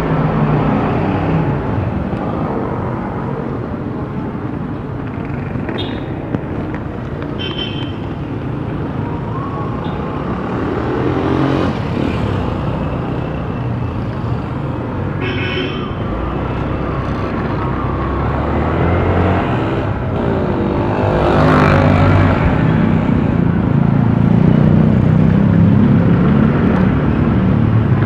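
Road traffic heard while riding a scooter: steady engine and road noise with other vehicles passing, growing louder after about twenty seconds.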